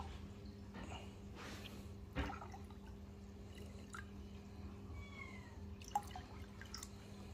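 Liquid culture poured in short runs from a plastic bottle into a plastic jug of salt water, faint, with dripping and a few light clicks and knocks of plastic. A steady low hum runs underneath, and there is a brief falling squeak about five seconds in.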